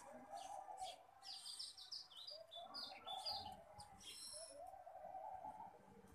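Sparrows chirping faintly, with runs of quick high chirps through the middle. A lower wavering sound comes and goes underneath.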